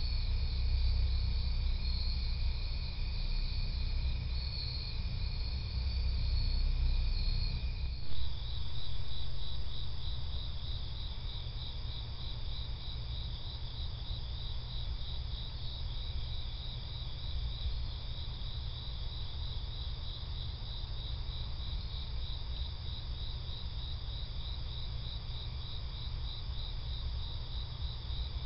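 Night chorus of crickets chirping steadily in a fast, even pulse, over a low background rumble. About eight seconds in there is a brief thump, and one strand of the chorus drops out.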